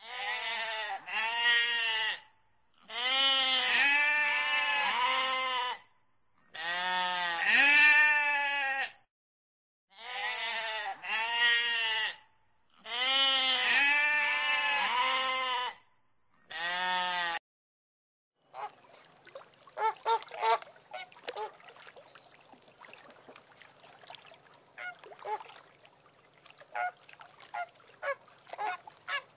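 Sheep bleating: a series of loud, quavering bleats, each a second or two long with short pauses between, over the first two-thirds. Then, after a brief silence, a flock of flamingos calling: many short, quieter honks overlapping.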